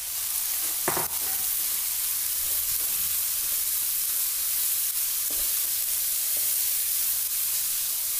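Chopped onions sizzling in hot mustard oil in a wok as they start frying toward golden. A steady frying hiss, with a few strokes of the spatula against the pan as the onions are stirred.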